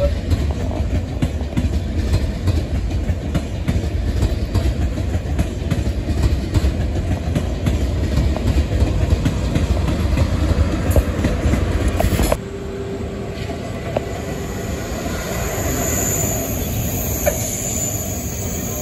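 TGV inOui high-speed train rolling past close by, with a low rumble and wheel clatter over the rail joints. About twelve seconds in, the sound cuts to a quieter, more distant TGV on a curve, whose wheels squeal high-pitched near the end.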